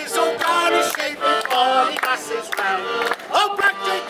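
Several voices singing together to an accordion.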